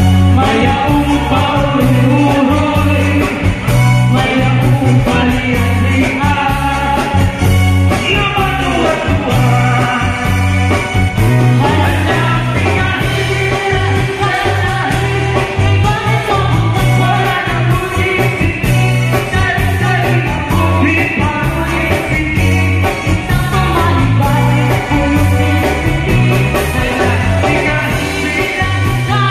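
Upbeat pop-rock song with a lead singer and a steady, pulsing bass line, played loud over a PA sound system.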